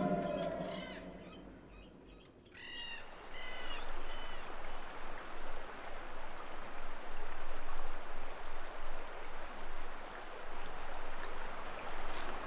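Forest ambience: a bird gives three short falling chirps about three seconds in, over a steady hiss that swells and falls. A low drone fades out in the first second, and a sharp click sounds near the end.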